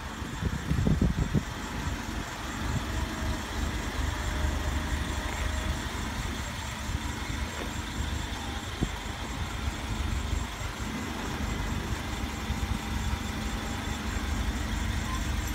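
Nissan forklift's engine running steadily at low speed, with a few low clunks about a second in.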